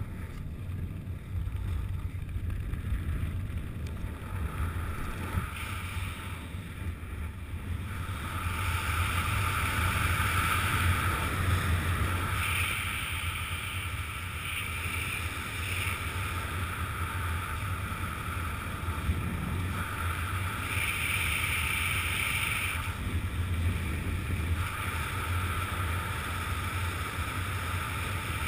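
Wind noise on the camera's microphone during a descent under an open parachute canopy: a steady low rumble, with a higher hiss that swells and fades every few seconds.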